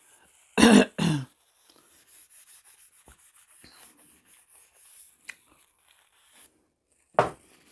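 A kitchen knife scraping and paring a small piece of food held in the hand, quiet and irregular, with one sharp click partway through. Two loud short bursts close to the microphone come about a second in, and another comes near the end.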